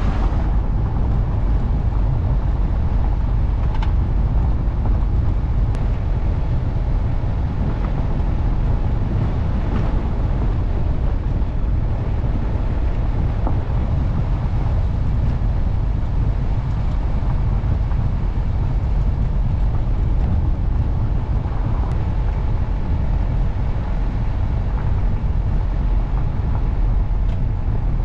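Steady rumble of a car driving on a gravel road: tyre and road noise with wind on the microphone, and a few faint ticks scattered through it.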